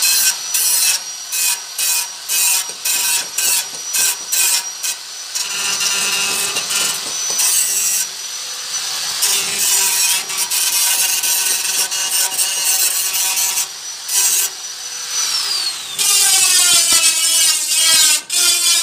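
Handheld electric power tool running with a high whine and biting into stainless steel in short repeated contacts, then longer ones. About 15 s in it winds down, then restarts at once with a harsher grinding for the last few seconds.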